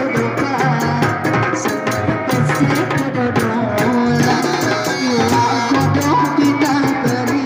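Live Sundanese kuda renggong procession music from a tanji ensemble: quick, driving hand-drum strokes under a wavering melody line.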